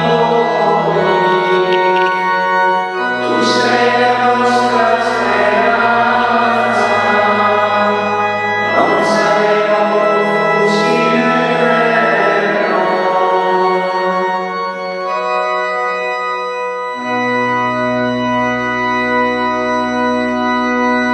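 Church organ playing slow sustained chords with singing over it, closing on a long held chord in the last few seconds.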